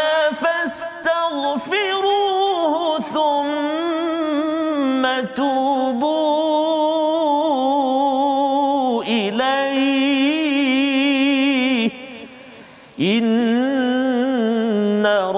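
A man reciting the Quran in melodic murattal tarannum in maqam sikah, drawing out long held notes with wavering, ornamented turns. He pauses for breath about twelve seconds in.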